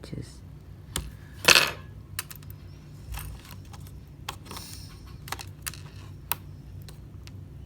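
Small sharp clicks and taps of metal curved-tip tweezers working on an opened iPhone's internal parts, with one louder clatter about a second and a half in, over a steady low hum.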